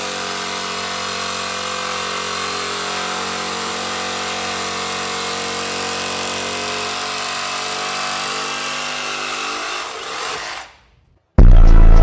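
A power grinder running steadily as it cuts the new ATV drive chain to length, its motor pitch sagging slightly under load toward the end before it stops. A short, very loud burst follows near the end.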